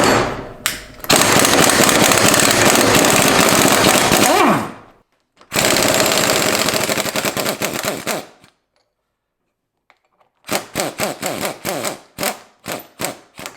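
Power impact wrench hammering as it undoes the bolts on an AP Racing brake caliper: two long rattling runs of a few seconds each, then a quiet gap, then a string of short bursts as the bolts spin out.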